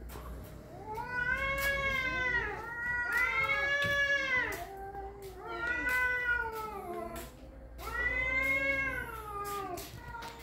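Two domestic cats yowling at each other in a territorial fight standoff: several long calls that rise and fall in pitch, the two voices overlapping and answering one another.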